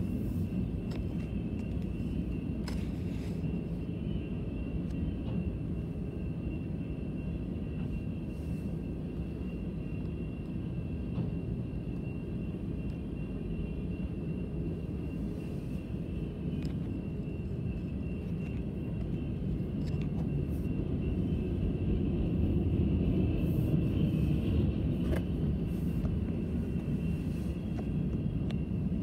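CN freight train's flatcars rolling past over the rails, a steady low rumble that grows somewhat louder about twenty seconds in, with a faint steady high tone above it.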